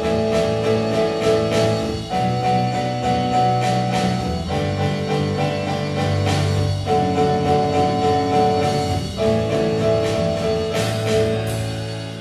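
Live band music with acoustic guitar, keyboard and drums playing an instrumental passage, the chord changing every two seconds or so. The music fades near the end as the song winds down.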